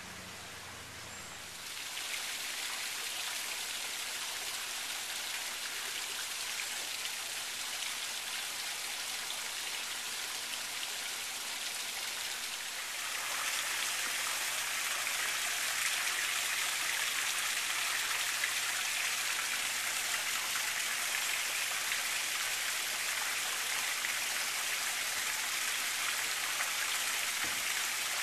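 Water running and splashing steadily into a pool, a rain-like hiss that grows louder about two seconds in and again about halfway through.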